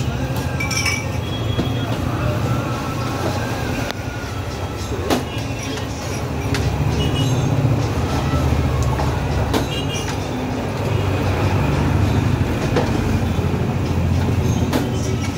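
A steady low rumble, with a few sharp clinks of drinking glasses ringing briefly over it.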